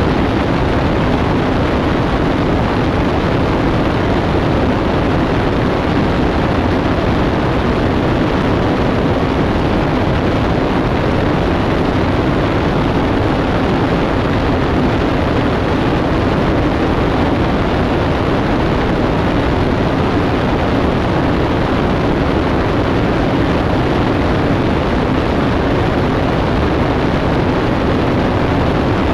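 Columbia 400 light aircraft in steady cruise, its turbocharged six-cylinder engine and propeller droning under a constant rush of airflow, heard from outside the fuselage. The level holds even throughout, with a steady low hum at its core.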